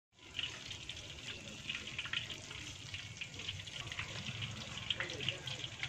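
Food deep-frying in hot oil in a pan: a steady sizzle with many small, scattered crackles, starting after a split second of silence.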